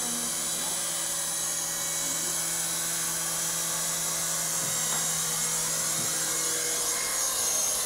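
Syma S111G mini RC helicopter in flight: its small electric rotor motors and spinning blades make a steady, high whine.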